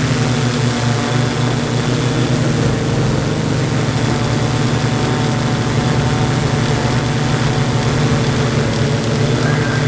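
Yuneec Typhoon G camera drone's electric motors and propellers running in flight, a steady buzzing hum heard from on board the drone.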